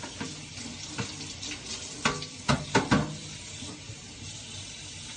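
Kitchen tap running into the sink while things are rinsed, a steady hiss with a quick run of four or five clattering knocks about two to three seconds in.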